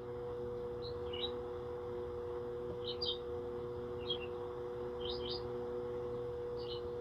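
A small songbird chirping in short notes, roughly once a second, over a steady low two-tone hum and faint background noise.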